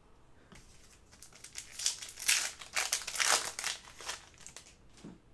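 Plastic trading-card pack wrapper crinkling in uneven bursts as it is torn open and handled, loudest from about one and a half to four and a half seconds in.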